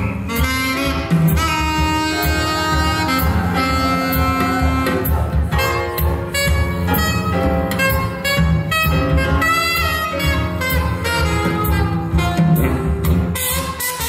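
Jazz music, a sustained melody line over a steady, pulsing bass.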